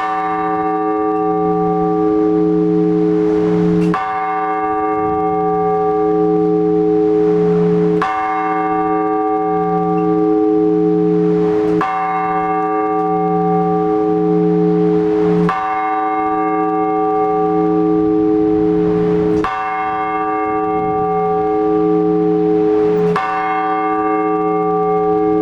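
A single large Orthodox church bell tolled in slow, even strokes, about one every four seconds, each stroke ringing on until the next. This single-bell tolling is the blagovest that calls worshippers to the all-night vigil.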